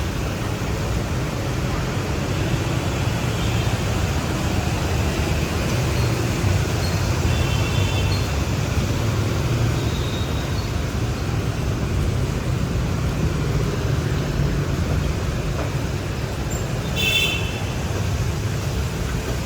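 City street traffic: a steady rumble of passing motorbikes and cars, with short vehicle horn beeps several times, the loudest about seventeen seconds in.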